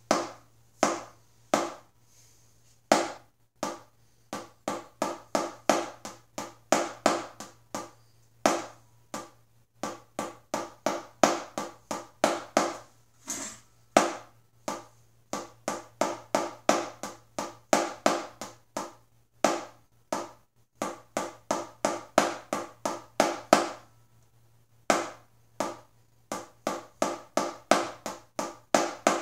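Wooden drumsticks striking a rubber practice pad, playing a simple 2/4 bass part. Groups of sharp taps fall in a steady rhythm, with brief pauses between phrases.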